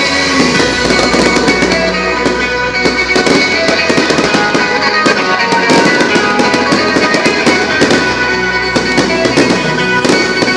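Fireworks going off in rapid, irregular bangs and crackles over loud music with held notes.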